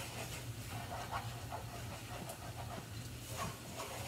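Wooden spoon stirring and scraping thick refried beans in a frying pan, a series of soft, irregular strokes over a steady low hum.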